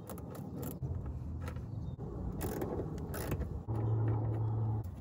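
A hand screwdriver working the screws where the fender meets the front bumper, with scattered light clicks, and a steady low hum lasting about a second near the end.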